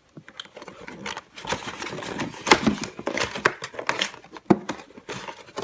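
Small plastic cosmetic bottles clicking and knocking against a moulded plastic tray and a tabletop as they are lifted out and set down, an irregular scatter of light taps.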